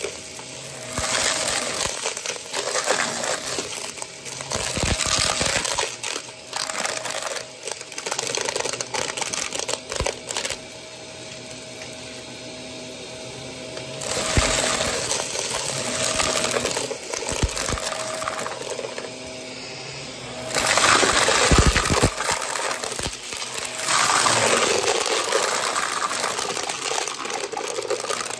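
Close-up ASMR trigger sounds: irregular clicks and taps mixed with spells of scratchy rustling, the rustling loudest around a third and three quarters of the way through.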